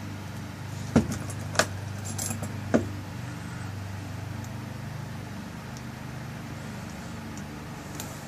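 Small metal clicks and taps of a lock cylinder's tail piece being fitted and screwed on by hand: three sharp clicks in the first three seconds, then a few faint ticks, over a steady low hum.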